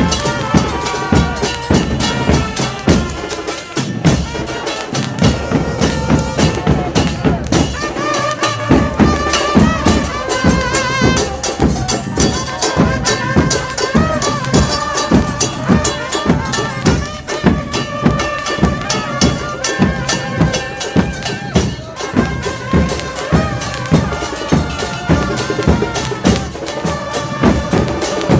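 Football supporters' crowd singing a terrace chant together, backed by steady pounding drum beats.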